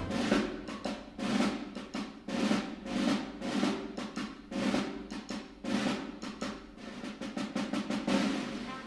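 Drum passage from a march on the soundtrack: snare and bass drums beating a steady cadence of about one heavy stroke a second, with a quick run of strokes near the end.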